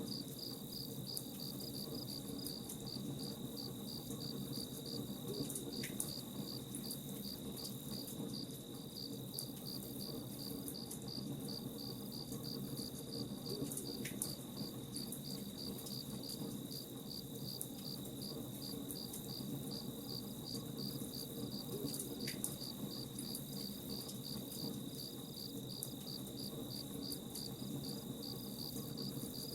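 Crickets chirping in a fast, even, unbroken pulse over the low crackle of a campfire, with an occasional sharp pop from the fire.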